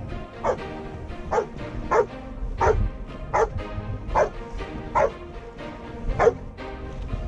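A search dog giving a steady series of single, evenly spaced barks, about three every two seconds, while it stays at one spot on the rubble: a rescue dog's bark indication, announcing a hidden person it has found.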